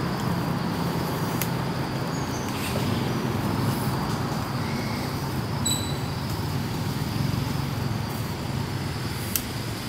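Steady low droning rumble, like distant engine or traffic noise, with a few brief high chirps about halfway through and a faint click near the end.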